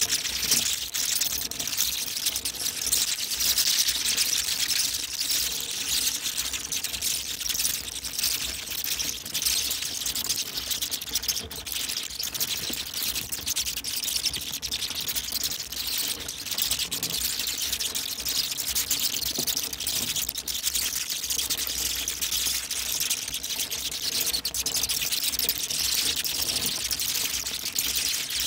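A colony of bats screeching and chittering as they leave the roost: a dense, unbroken mass of high-pitched squeaks and clicks.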